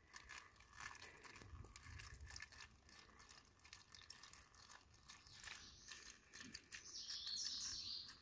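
Near silence with faint rustling and light clicks, and a brief faint high-pitched sound near the end.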